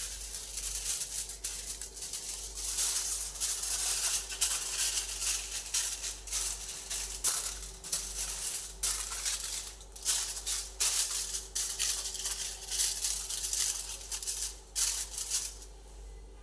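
Aluminium foil crinkling and rustling in quick irregular bursts as it is folded and pressed into a loaf pan by hand, dying away shortly before the end.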